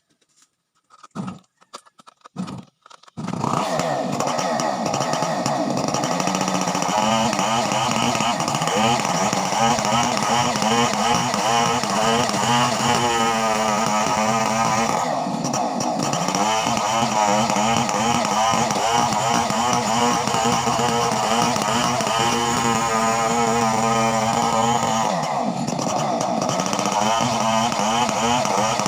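Two-stroke chainsaw engine starting about three seconds in, then running loudly without a break, its speed rising and falling.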